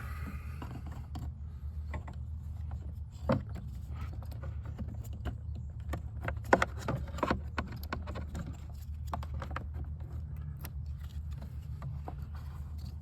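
Scattered small clicks and knocks of plastic and wiring being handled as a blower motor resistor is worked into its slot behind a tight wiring harness, over a steady low hum.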